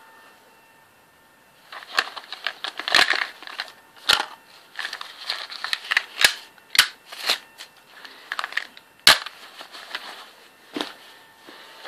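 Hard plastic coin capsules holding one-ounce gold Krugerrands clicking and clacking against each other as they are handled, with cloth rustling. The irregular sharp clicks start about two seconds in.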